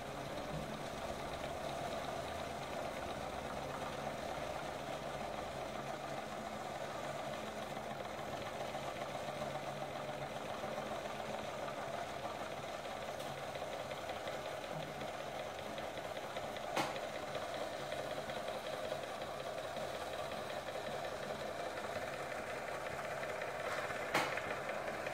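Small homemade single-cylinder steam engine running fast and steadily with a rapid, even chuff and clatter. Two sharp clicks come later on, one about two-thirds of the way through and one near the end.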